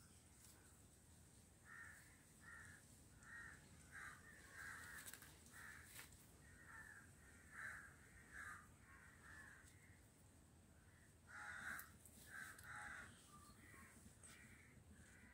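Faint birds calling in a long series of short, harsh calls, about one to two a second, with a brief pause about ten seconds in.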